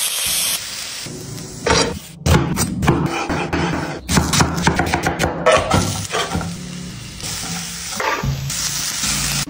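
A quick run of kitchen sounds over background music: marinated chicken pieces sizzling as they are laid into a hot pan, then a chef's knife cutting through an onion on a wooden board with a string of sharp cuts, and frying sizzle again near the end as cooked chicken is scraped into a pan of onions and peppers.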